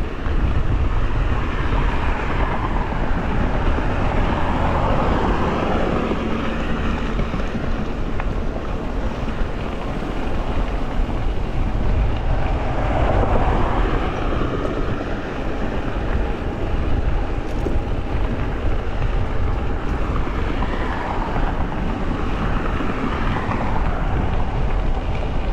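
Steady wind rushing over the microphone of a camera on a moving electric bike, with the bike's rolling noise underneath.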